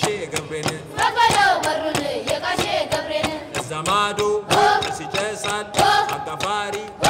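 Music: chant-like singing over sharp percussion strikes.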